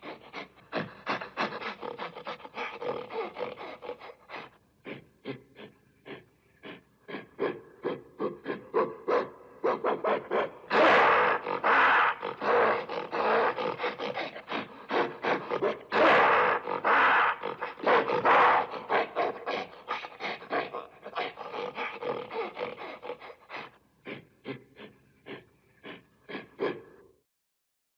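Gorilla vocalizing in a rapid, rhythmic run of short panting grunts, a few per second, swelling into louder roaring stretches about a third of the way in and again past the middle, then stopping shortly before the end.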